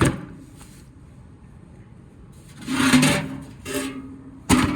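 Sheet-metal blower wheel being handled: a sharp knock, a rubbing scrape with a faint metallic ring about three seconds in, a shorter scrape, then another sharp knock near the end.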